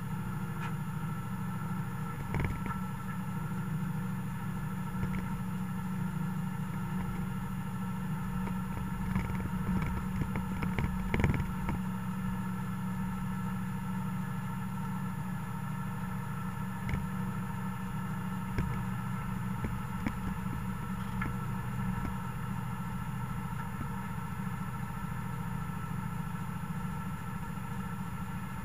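Mercedes-Benz MB trac 1000 tractor's six-cylinder diesel engine running steadily, heard from inside the cab, with scattered clattering knocks, the loudest about eleven seconds in.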